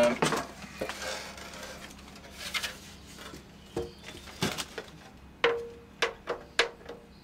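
Model airplane tail surfaces knocking and rubbing against each other and the cardboard box as they are lifted out and the elevator halves are fitted together. The sound is a scatter of sharp taps, most of them in the second half, over a light rustle.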